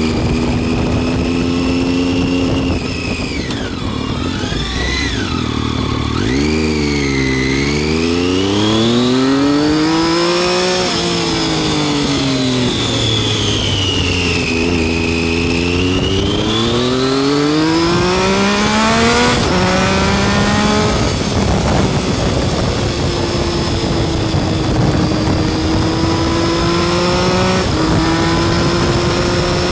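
Triumph Street Triple R's inline three-cylinder engine under way, revs climbing and falling several times as the rider accelerates, shifts and rolls off through the bends. The pitch drops sharply about six seconds in and again near twenty seconds, then holds fairly steady.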